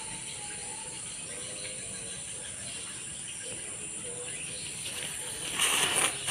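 Steady high chirring of night insects, then about five and a half seconds in a small ground firework lit on concrete starts hissing loudly as it sprays sparks.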